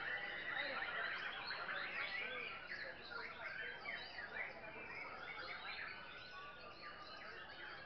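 Many caged white-rumped shamas singing at once, a dense chorus of overlapping whistles and chirps, a little louder in the first few seconds.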